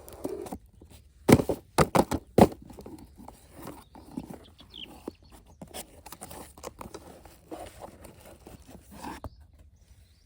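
A quick run of about five sharp knocks, then lighter scattered clicks and rustling, like hard plastic being handled.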